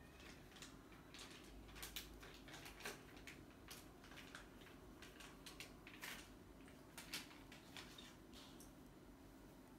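Near silence: faint room tone with scattered soft clicks and ticks at irregular intervals.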